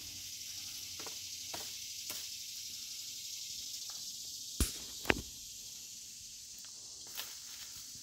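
Dead branches cracking as they are broken out of a tree: a few light cracks, then two sharp, loud cracks about halfway through, over a steady high hiss.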